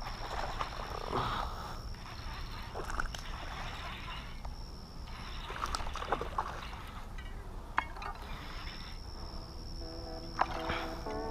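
Pond-side outdoor ambience with frogs croaking, scattered light clicks and a steady high-pitched whine that drops out in the middle. Music comes in near the end.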